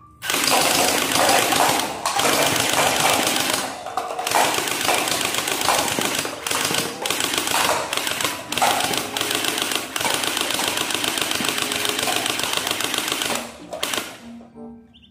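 Toy AKM rifle firing projectiles on full auto, a fast mechanical clatter in long bursts broken by short pauses, stopping near the end.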